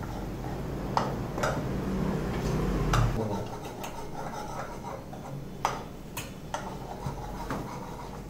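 Metal ladle stirring chickpeas in an iron kadai, clinking against the pan at irregular intervals, over a low steady hum.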